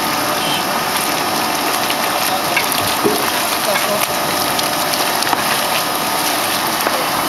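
Steady noise of a plaster mixer running and churning gypsum slurry, with water-like rushing.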